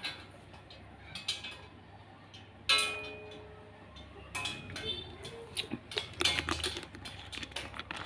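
Metal clinks and taps, with two sharp metallic strikes that ring and fade over about a second, a few seconds in and again about two seconds later: metal parts and tools knocking while an air conditioner's wall mounting is fitted.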